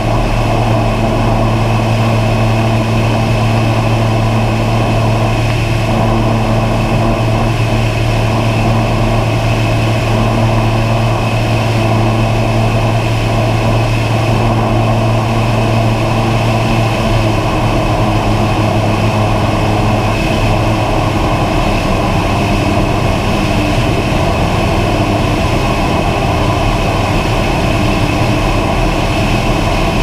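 Steady propeller and motor noise of the aircraft carrying the camera, heard on board: a constant hum with a low tone that shifts slightly in pitch about two-thirds of the way through.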